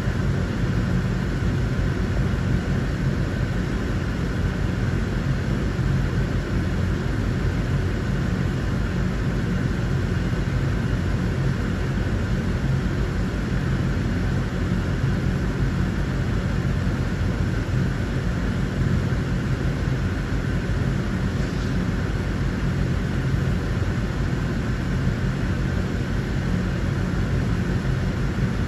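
Sounder MP40PH-3C diesel locomotive idling at a level crossing: a steady low rumble with an even hum, heard from inside a car.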